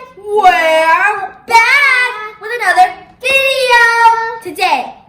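A child singing a few short phrases in a high voice, with some notes held and some sliding.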